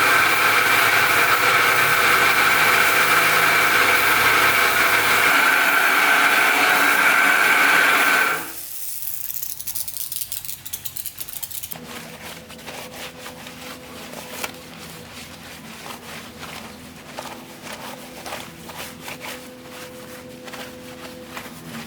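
A machine runs loudly with a steady whine, then cuts off suddenly about eight seconds in. After that there is a much quieter steady hum with scattered clicks and knocks.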